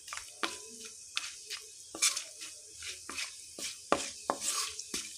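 Whole spices (bay leaves, cinnamon, cumin seeds) sizzling in hot oil in a non-stick pan, while a wooden spatula stirs them with irregular sharp knocks and scrapes against the pan.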